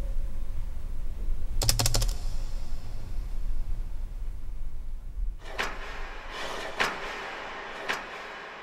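A low rumble under a quick run of mechanical clicks about two seconds in, followed by several separate sharper clicks, each with a short ringing tail, spread over the second half.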